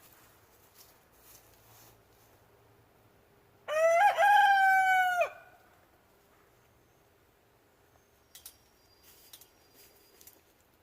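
A rooster crowing once, a single crow of about a second and a half, followed by a few faint clicks.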